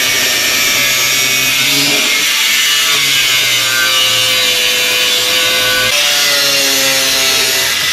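Electric angle grinder cutting through a steel engine-mount bracket: a loud steady grinding hiss over the motor's whine, the pitch dipping slightly a couple of times as the cut goes on, stopping right at the end.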